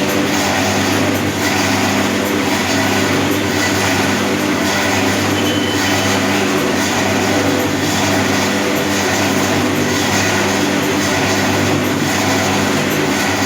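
Gulkand mixer-grinder machine running steadily: a constant electric-motor hum under an even mechanical noise, with no change in speed.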